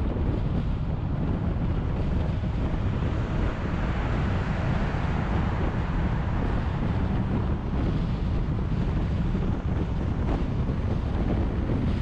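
A car driving at speed on an expressway: steady road and wind noise over a deep rumble. The noise swells a little in the middle as the car passes through a short underpass.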